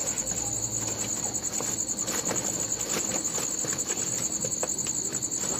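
Crickets chirping steadily, with the rustling and crinkling of a woven plastic sack being handled and opened.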